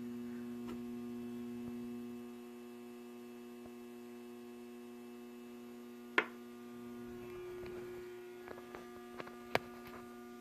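Steady electrical hum with a few sharp clicks, the loudest about six seconds in and several smaller ones near the end.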